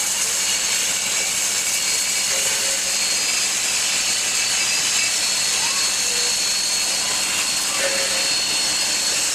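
Steady steam hiss from the standing New South Wales 32 class 4-6-0 steam locomotive 3265, with steam escaping low around its cylinders and front end.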